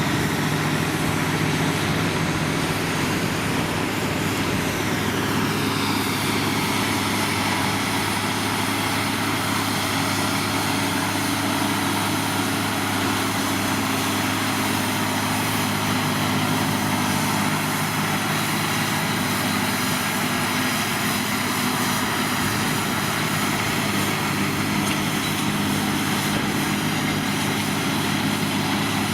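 New Holland tractor's diesel engine running steadily, pulling a plough.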